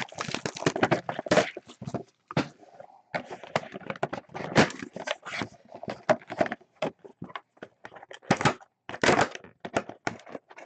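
A sealed trading-card box being opened by hand: its wrapping and cardboard crinkle, crackle and snap in quick, irregular bursts.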